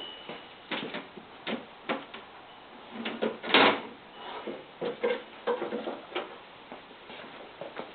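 Metal tools and parts handled on a workbench: a string of irregular clicks and knocks, with one longer scrape about three and a half seconds in, as a file is fetched to take a little more off a pulley adapter.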